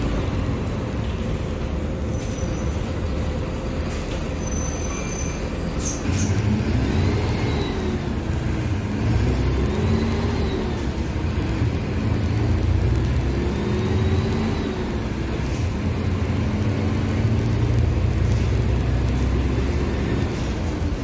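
Mercedes-Benz OF-1721 BlueTec 5 bus engine, a four-cylinder turbodiesel, running under way. It runs steadily at first; about six seconds in it gets louder and its pitch rises and falls several times as the bus pulls away and accelerates.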